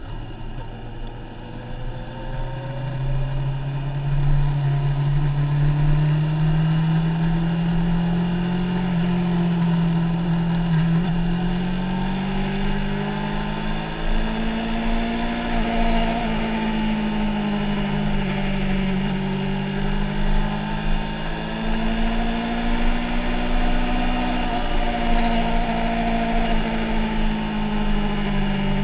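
Motorcycle engine running under way, its note slowly rising and falling as the revs change.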